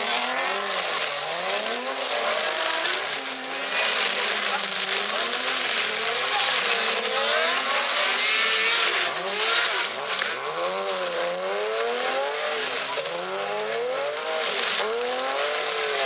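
Rally car engine revving up and easing off over and over, its pitch rising and falling in quick sweeps, under a steady hiss of heavy rain.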